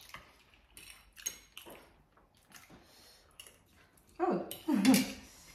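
Light clinks and scrapes of chopsticks and forks on plates during a meal. About four seconds in comes a short, loud vocal sound.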